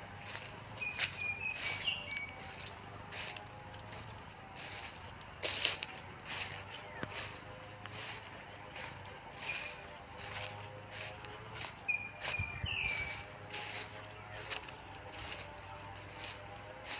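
Steady high-pitched drone of insects in woodland, with a few short bird whistles about a second in and again around twelve seconds in, and scattered light clicks and rustles.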